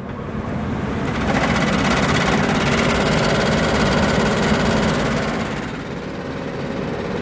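1980s furnace blower motor cutting on and spinning up over about the first second, then running loud with the blower wheel and housing rattling and vibrating. The rattle has not been cured by strapping the assembly down with hole strap.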